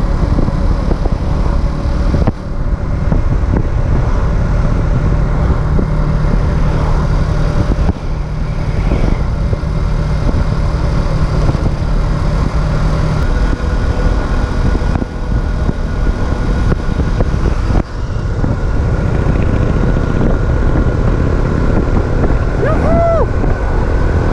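Racer Alpha RC50 moped's 50 cc four-stroke single-cylinder engine running under way while still being run in, with heavy wind noise on the microphone. The level dips briefly a few times. Near the end there are a few short rising-and-falling tones.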